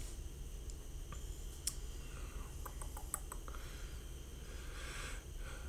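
Faint clicking of keys: a few single clicks, then a quick run of clicks about three seconds in, over a steady low room hum.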